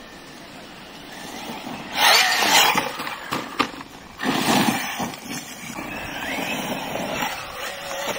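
Large electric radio-controlled car driven hard: the brushless motor whines and rises in pitch, with two loud rushing bursts about two and four seconds in and a few sharp clicks between them. The sound cuts off suddenly at the end.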